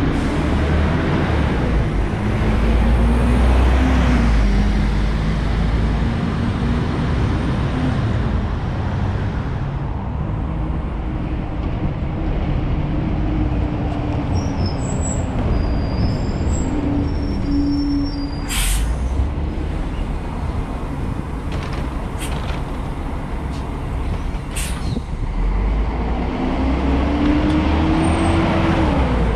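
City buses' engines running as buses pull away from and draw up to a stop, the engine note climbing near the start and again near the end, with a quieter spell between. Two brief sharp hisses come about two-thirds of the way through.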